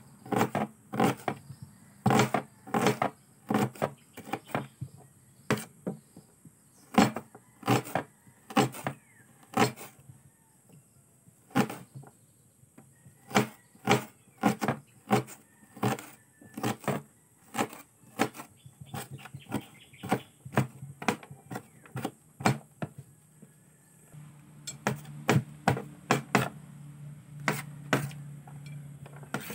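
Kitchen knife chopping red onion on a tabletop, with sharp chops coming irregularly at about one or two a second and a few short pauses.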